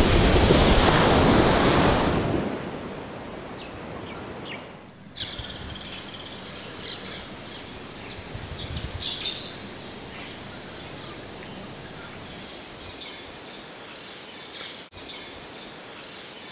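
Surf washing in over the beach for the first couple of seconds, then dying away. From about five seconds in, birds chirping and calling again and again over quiet outdoor background.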